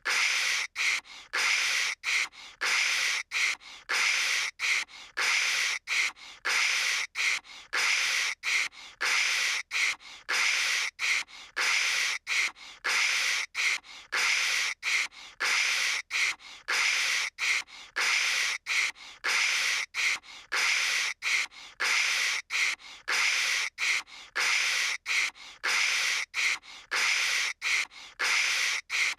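A voice imitating telephone static with the mouth: short hissing "kshh" bursts, about two a second, with brief gaps between.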